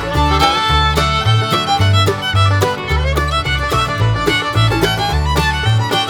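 Background music: an upbeat fiddle tune over a walking bass line.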